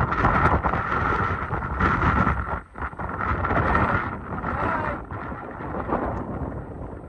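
Hurricane-force wind of Hurricane Ian's eyewall blasting the microphone in gusts, with a steady high whistle through it; it drops sharply for a moment about two and a half seconds in, then picks up again.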